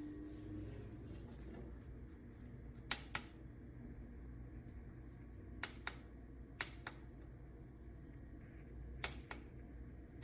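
Four pairs of sharp small clicks, the two clicks of each pair about a quarter second apart, over a low steady hum.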